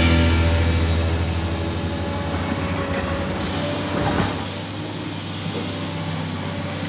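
SANY SY215C hydraulic excavator's diesel engine running with a steady drone while its bucket digs.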